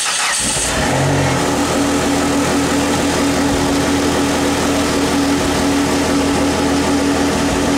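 Chrysler PT Cruiser GT's turbocharged 2.4-litre four-cylinder engine idling steadily, just after being started.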